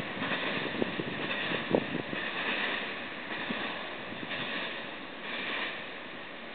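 A freight train rolling away, its wheels clicking over rail joints, fading as the last cars recede. Under it is a hiss that swells about once a second.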